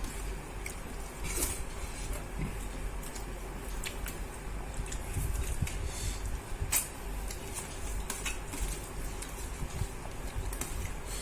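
Metal utensil clinking and knocking against a cooking pot: scattered sharp clicks, the loudest a little past halfway, over a low steady hum.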